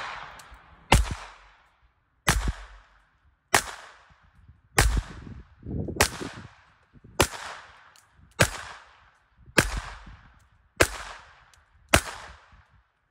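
A .22 LR Smith & Wesson M&P 22 Compact pistol with a Tandem Kross muzzle brake fires ten shots, about one every 1.2 seconds. Each sharp crack is followed by a short echo.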